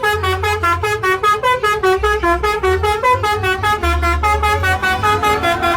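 Basuri telolet bus horn playing a fast melody, a rapid run of short pitched horn notes, about six or seven a second, stepping up and down in pitch.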